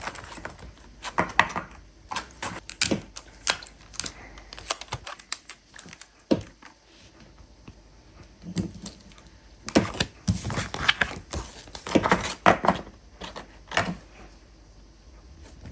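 Irregular clicks, taps and light rustles of paper and craft supplies being handled on a table, in bunches with a quieter stretch in the middle.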